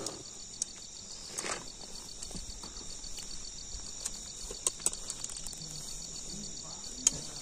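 A steady, pulsing high-pitched insect chorus, like crickets trilling, with a few scattered light clicks and taps.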